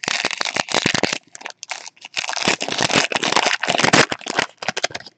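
Foil wrapper of a Panini Unparalleled football card pack crinkling and tearing as it is ripped open by hand, a dense run of crackles that thins out briefly about a second in.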